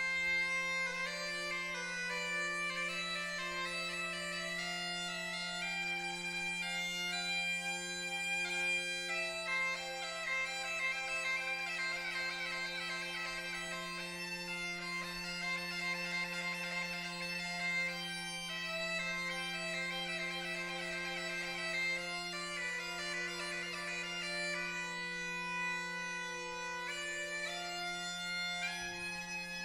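Portuguese bagpipe (gaita de foles) playing a traditional tune solo: a steady drone under the chanter's melody, which moves into quick runs of notes in the middle.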